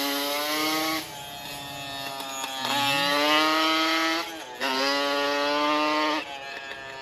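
Two quad ATVs, a Yamaha Banshee two-stroke and a Yamaha Raptor 700, accelerating hard away in a drag race. Engine pitch climbs in each gear and drops at each shift, about three or four times.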